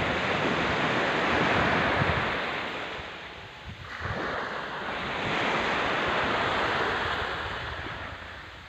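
Small sea waves breaking and washing up a sand beach: two long rushing surges, each swelling and then fading.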